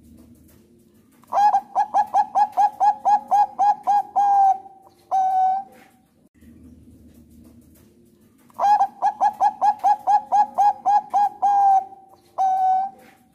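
Zebra dove of the Thai-bred perkutut bangkok song strain singing two phrases. Each phrase is a quick run of about a dozen short coos, roughly four a second, ending in a longer held coo and followed by one separate coo. A faint low hum fills the gaps between phrases.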